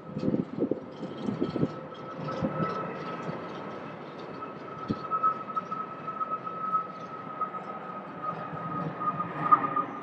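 Boeing 737 airliner's jet engines at takeoff thrust through the takeoff roll, liftoff and initial climb: a steady rumbling roar with a high, even whine over it. Low thumps of wind on the microphone in the first two seconds.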